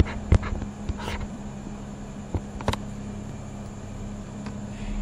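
Steady low electrical-sounding hum of room background noise, with a few sharp isolated clicks: two near the start and two more about halfway through.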